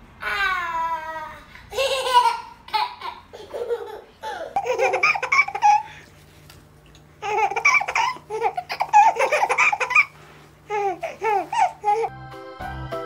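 Babies laughing and squealing in repeated bursts of giggles, opening with a long falling squeal. A music track starts near the end.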